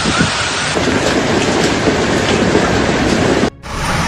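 Steady rushing noise of heavy rain during a storm. The sound changes abruptly twice, as from one clip to the next: a deeper, denser rush comes in about a second in, and there is a brief dip near the end.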